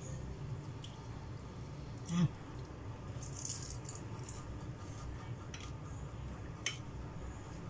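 Eating whole cooked shrimp by hand: the shells crackle as fingers peel them, with wet chewing and mouth sounds and scattered small clicks. One brief low sound about two seconds in is the loudest moment.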